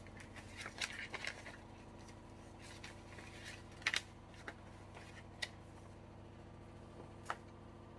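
Paper envelope being handled and folded: soft rustling and sliding of paper, with a few brief light clicks and taps.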